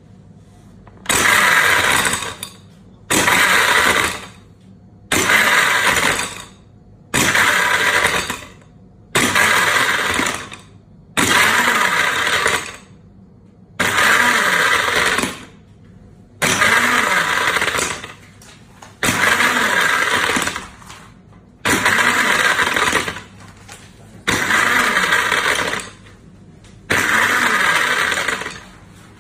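Countertop blender (Poking PB37) pulsing on its one-touch auto program: the motor runs in about a dozen bursts of a second and a half, one roughly every two seconds, while the blades crush ice cubes in the glass jar.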